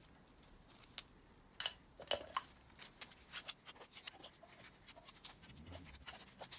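Scattered light clicks and taps of small metal engine parts being handled, about one every second or so.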